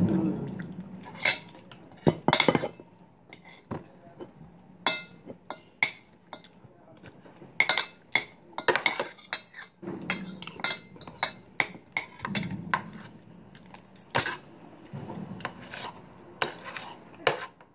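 Metal spoons clinking and scraping against ceramic bowls and plates while eating: irregular sharp clinks, some in quick clusters.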